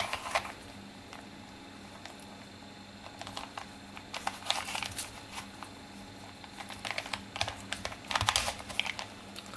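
Plastic Rubik's Cube being twisted by hand: rapid clicking and rattling of the layers turning, in three bursts: at the start, in the middle, and toward the end.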